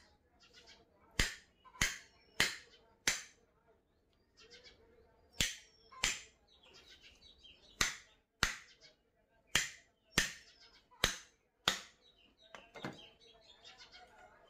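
A heavy cleaver is struck again and again on the back of a knife blade, driving it through a large fish head. The blows are sharp knocks, about thirteen of them, mostly in pairs, and they stop about a second and a half before the end.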